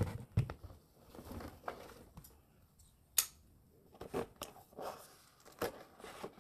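Scissors cutting at packing tape on a cardboard box, in short scrapes and snips, with hands rustling and knocking the cardboard; one sharp click about three seconds in.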